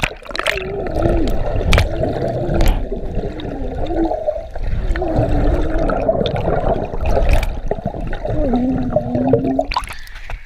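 Muffled underwater sound of a swimming pool, heard from below the surface: a dull rumble and gurgle of moving water with a wavering, muffled hum and a few sharp knocks. The sound opens out into brighter splashing as the camera breaks the surface near the end.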